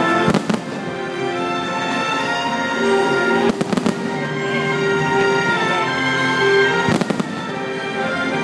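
Fireworks bursting over loud show music with long held notes; clusters of sharp cracks come about half a second in, around three and a half seconds, and around seven seconds.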